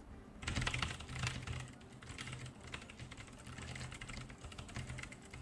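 Continuous fast typing on an NCR-80 mechanical keyboard with Kailh Box White V2 switches and Shenpo keycaps: a dense clatter of keystrokes starting about half a second in, which sounds somewhat tactile.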